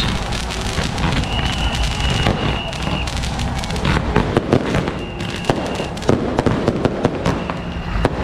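Firecrackers and fireworks going off in a dense, continuous crackle, with sharper, louder bangs standing out from about halfway through. A steady high whistle sounds twice over the crackle.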